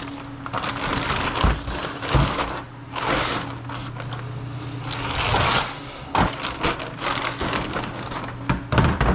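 Rustling and crinkling of packaging being handled and crushed, with scattered sharp cracks and knocks, over a steady low hum.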